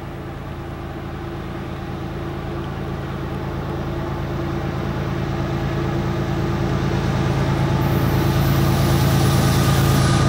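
Lead GE ES44C4 diesel locomotives of an approaching freight train, their engines running with a steady low drone that grows steadily louder as they near.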